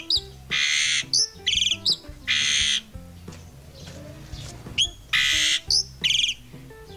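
A caged black-and-white bird calling loudly: harsh screeches of about half a second mixed with short whistled notes, in two bouts with a pause of about two seconds between them. Faint background music underneath.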